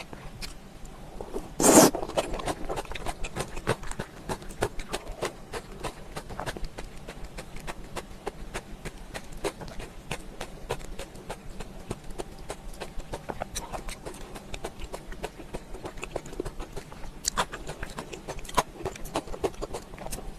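Close-miked chewing and wet lip-smacking of someone eating, a steady stream of irregular mouth clicks, with one louder burst about two seconds in.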